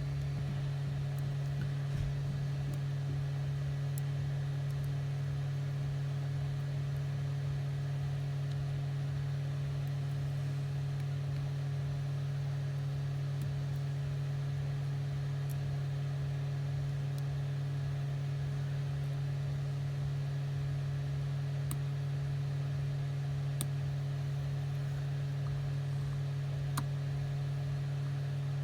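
A steady low hum runs throughout at an even level, with a few faint light clicks.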